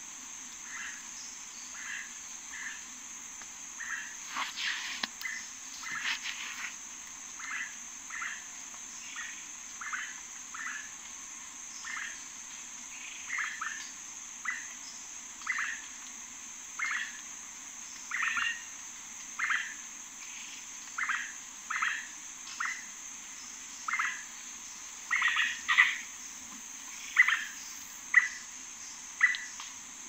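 Rainforest ambience: a steady high insect drone, with a short call repeated more than once a second by a calling animal, growing louder over the last few seconds.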